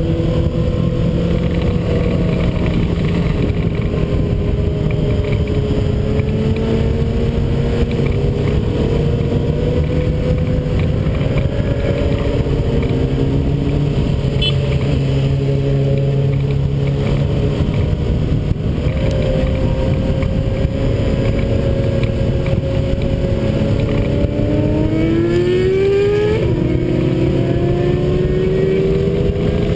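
Several motorcycles passing in both directions, their engine notes overlapping and rising and falling in pitch over a steady low rumble. Near the end one engine revs up sharply.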